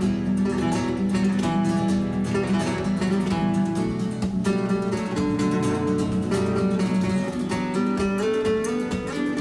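Background music: acoustic guitar playing quick plucked notes and strums in a flamenco-like style.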